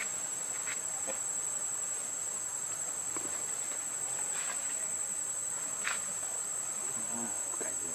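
Steady high-pitched insect drone, with a few faint short clicks over it.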